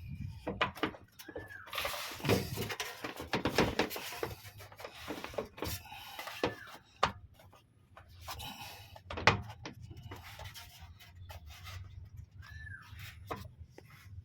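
Metal parts of a Peugeot 307 SW's spare-wheel winch (cable pulley) being pulled and worked loose from under the car: irregular clicks, knocks and scraping, with a short squeak three times.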